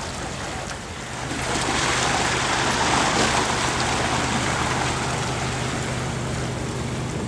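Steady rush of water with a low engine hum underneath; the rush swells about a second in and holds.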